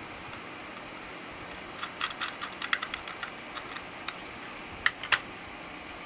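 Small metallic clicks and taps of a Torx T6 screwdriver and tiny mounting screws being handled as the screws are driven into the side of a solid state drive. A quick, uneven run of clicks starts about two seconds in, and two sharper clicks come near the end.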